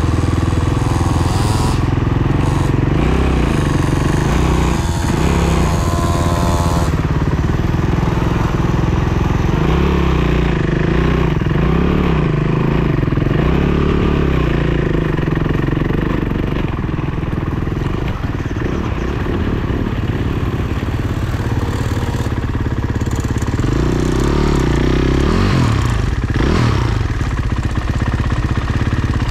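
Off-road motorcycle engines running as the bikes ride along, the engine note rising and falling with the throttle, with a sharper rev up and back down a few seconds before the end.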